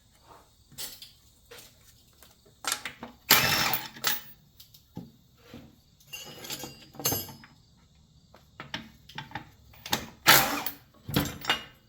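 Impact driver run in several short bursts, backing bolts out of a motor starter's steel brackets, with metal parts clinking in between. The loudest bursts come about three and a half seconds in and about ten seconds in.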